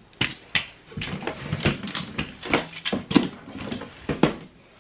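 Close handling noise: an irregular run of clicks, knocks and rustles as a phone is set down and handled at its charger, with a sharper knock about three seconds in.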